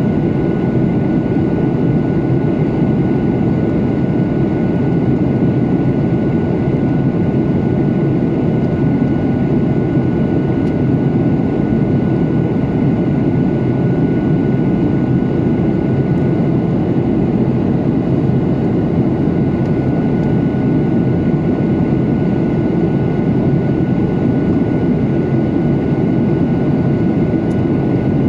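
Steady cabin noise of a jet airliner in flight, heard from a window seat over the wing: the jet engines' rumble and the rush of airflow, with a faint steady high whine above it.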